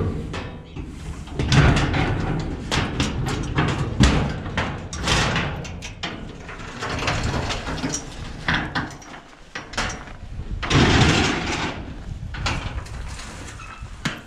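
Padlock and chain rattling on a corrugated sheet-metal gate as it is unlocked, then the metal gate leaves being pushed open, with repeated clanks, rattles and knocks. There is a longer, louder noisy stretch about eleven seconds in.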